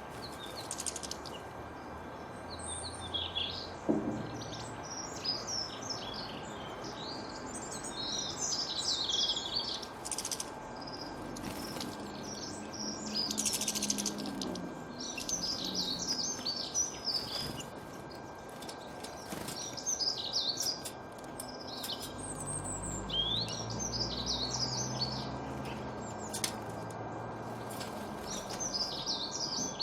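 Wild birds singing: bursts of quick, high chirps and short phrases, often several birds at once, coming every few seconds over a steady background hiss.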